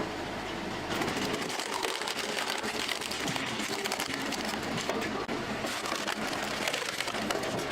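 Wood-processing machine running, a steady mechanical noise with frequent sharp clattering knocks of wood, busier from about a second in.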